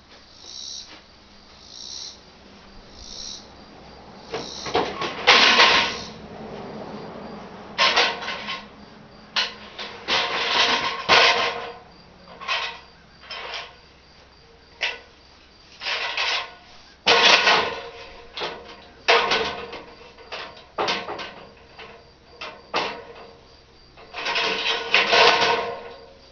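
Irregular clunks, knocks and scrapes of braces being handled and fitted under a shed beam, in short bursts with pauses between.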